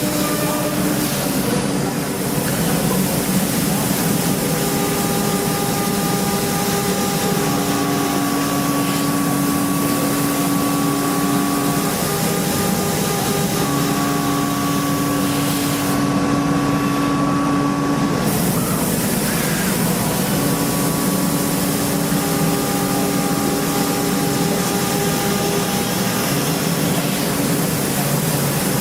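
CNC machine tool running while it machines an engine block: a steady, loud machining noise with held cutting tones that change pitch every few seconds.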